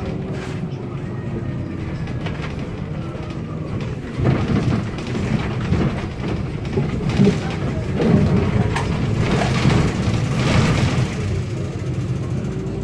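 Inside a Solaris Urbino 8.9LE city bus: the engine runs steadily with a faint, slowly falling whine, then from about four seconds in the bus body rattles and knocks irregularly as it rolls over a railway level crossing and onto rough cobblestones.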